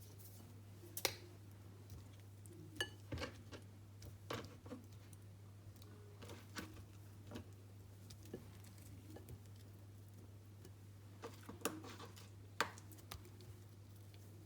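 Sparse light clinks and taps of kitchen utensils against a dish while pineapple slices are layered with sugar, the sharpest knocks about a second in and again near the end. A low steady hum runs underneath.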